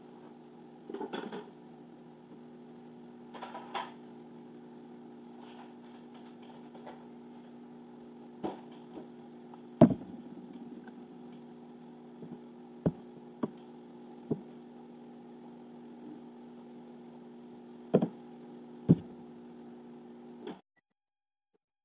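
Scattered sharp knocks and clatter of someone working at a kitchen counter, the loudest about halfway through, over a steady appliance hum. Everything stops abruptly near the end.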